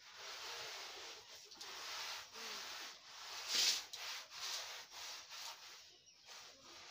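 A cloth rubbed back and forth over a concrete step: a continuous scratchy rubbing, loudest about three and a half seconds in, that dies down near the end.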